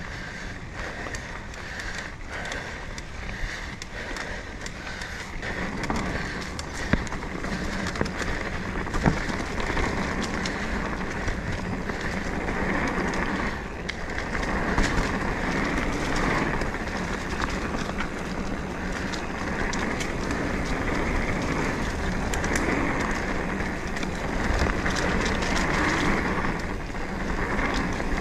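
Mountain bike rolling along a dirt singletrack: tyre noise with frequent clicks and rattles from the bike over bumps, louder after about six seconds.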